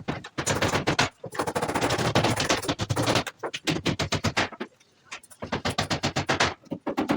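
Rapid runs of sharp knocks or scraping strokes in several bursts, with brief pauses between them.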